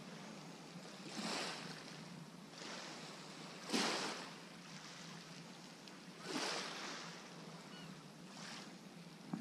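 Small waves washing in over a shingle beach: a soft hiss that swells into a gentle surge about every two to three seconds, four times, the loudest about four seconds in.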